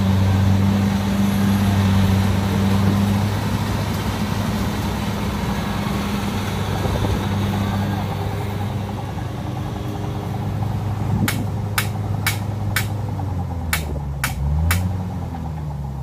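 Kubota combine harvester's diesel engine running steadily, its hum dropping back after about eight seconds and its note wavering near the end. From about eleven seconds in, a run of sharp clicks or taps, roughly two a second.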